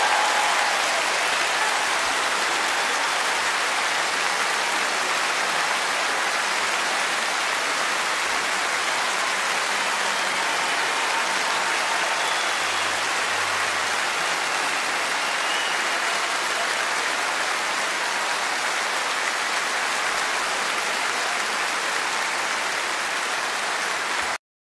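Large concert audience applauding steadily as a dense, even clatter of clapping. It cuts off suddenly near the end.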